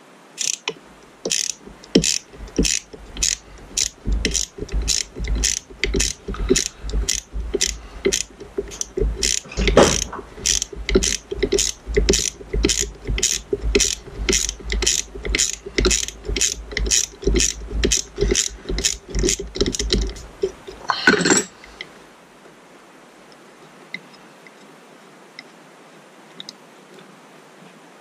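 Hand socket ratchet clicking steadily, about two clicks a second, as a small screw holding an outboard ignition coil's mounting bracket is backed out. It ends with a quick flurry of clicks about 21 seconds in, then stops.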